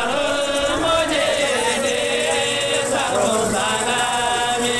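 Men's voices chanting together in long held sung phrases.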